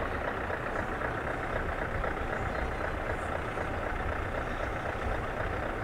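Heavy diesel truck engine idling, a steady low running sound that neither rises nor falls.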